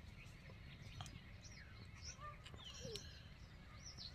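Faint, scattered chirps of small birds over a low, steady background rumble.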